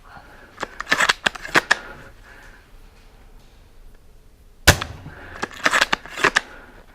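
Airsoft gunfire: a cluster of sharp snapping shots about a second in, a single louder shot a little before five seconds, then another quick cluster of snaps near the end.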